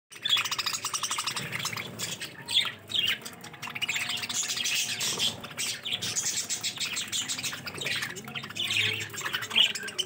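A flock of budgerigars chattering continuously, many fast chirps, warbles and squawks overlapping.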